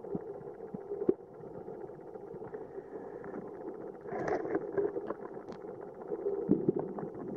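Underwater ambience: a steady muffled rumble with scattered clicks and crackles, and a louder patch of crackling about four seconds in.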